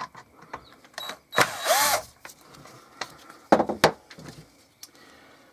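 Cordless drill-driver motor running in one short burst about a second and a half in, its pitch rising and falling as it spins up and stops, while it works a screw in the hedge trimmer's plastic housing. A few sharp clicks and knocks of handled parts follow.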